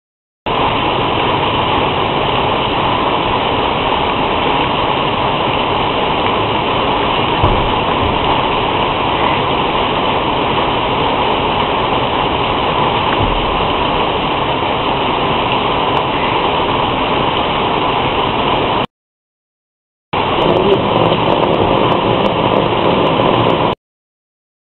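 Heavy rain, a steady hiss heard through a CCTV camera's microphone, which cuts the sound off abruptly for about a second partway through and again shortly before the end.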